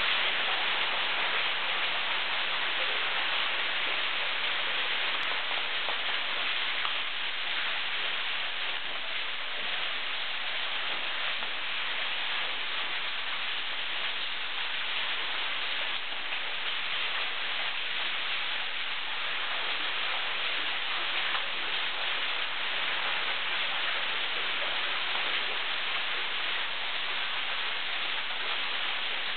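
Thin waterfall pouring down a rock face into a gorge pool: a steady, even rush of splashing water.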